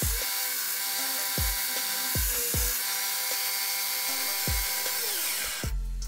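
Homemade 2x48 belt grinder sanding a metal housing pressed against the belt, a steady grinding hiss that stops shortly before the end. Background music with a steady beat plays over it.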